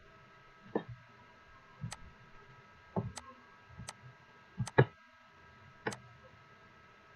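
Computer mouse button clicking as counters are dragged across the screen: sharp single clicks roughly a second apart, with two in quick succession near the middle.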